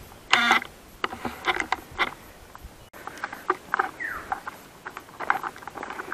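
A scatter of short, high chirps and squeaks from small animals, with a longer call near the start and one call that slides down in pitch about four seconds in.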